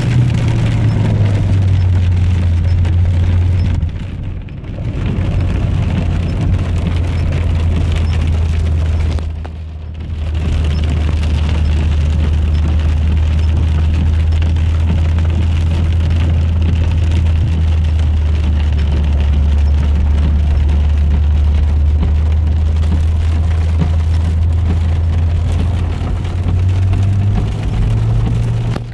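Heard from inside a Volvo V40 driving through a heavy rainstorm: rain falling on the car over the steady low drone of the engine and tyres. The sound dips briefly twice, about 4 and 10 seconds in.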